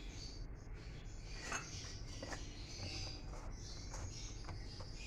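A damp cloth rustling faintly as hands spread it over a steel bowl of dough, with a few light knocks.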